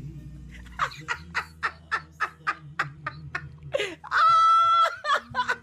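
A man laughing hard in quick, rhythmic bursts, about three to four a second, then one loud, high-pitched held cry lasting about a second.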